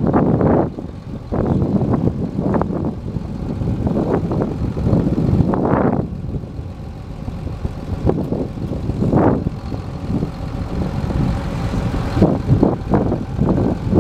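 John Deere 7720 tractor's six-cylinder diesel engine running as the loader tractor drives slowly past, with wind buffeting the microphone in uneven gusts.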